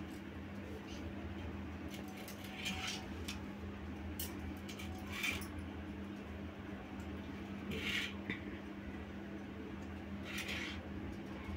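Light household handling noises: scattered small clicks and four short rustling or scraping sounds, spaced a couple of seconds apart, over a steady low hum.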